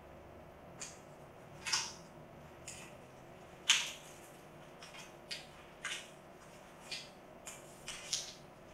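A paper one-dollar bill being bitten and chewed: a dozen or so short, crisp paper crackles at uneven intervals, the sharpest about four seconds in.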